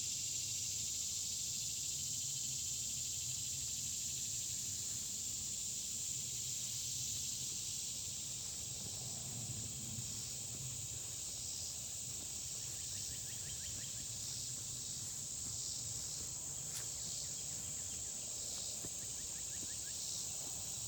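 Steady chorus of insects, a continuous high-pitched trill, over a faint low rumble.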